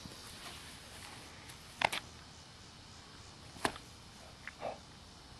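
Pomeranian puppy giving a few short, sharp barks: a quick pair about two seconds in, another just before four seconds, then softer ones shortly after.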